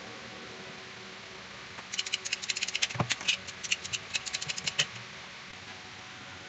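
Blue-handled ratchet PPR pipe cutter clicking rapidly as its blade is worked through a green PPR water pipe. It makes a fast run of sharp clicks starting about two seconds in and lasting about three seconds.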